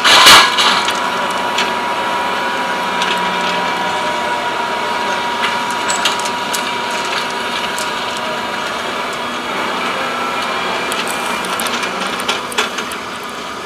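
Hydraulic excavators running while handling broken breakwater rubble, with a steady engine and hydraulic whine. A loud crash of rock and concrete comes just after the start, and scattered knocks of stone follow near the end.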